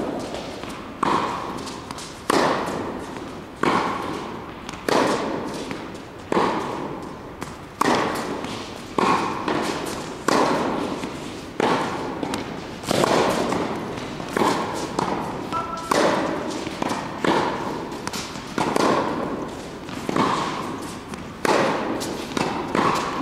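Tennis ball struck by rackets in a rally: a sharp pop about every second and a quarter, each ringing out with a long echo in the large indoor court hall.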